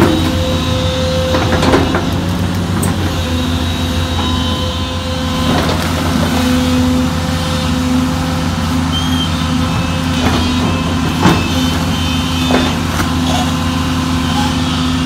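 Sunward SWE210ELR long-reach excavator's diesel engine running steadily under working load with a humming drone as it digs through mud, with a few short knocks from the bucket and boom.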